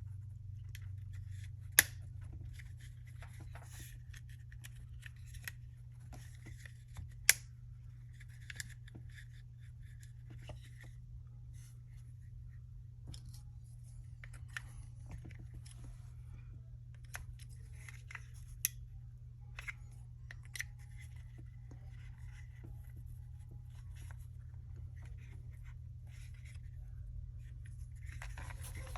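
Small metal pistol parts clicking and scraping as a Glock 43's trigger and connector assembly is worked into place by hand. Two sharp clicks stand out in the first several seconds, with lighter ticks and rubbing after them, over a steady low hum.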